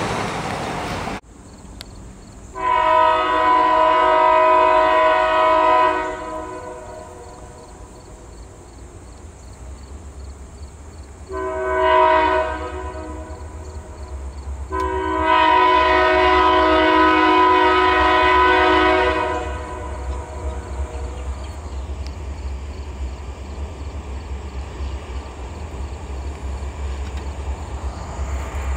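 Diesel freight locomotive's multi-chime air horn sounding long, short, long: the closing part of the long-long-short-long grade-crossing signal. A low diesel engine rumble grows beneath it as the train approaches.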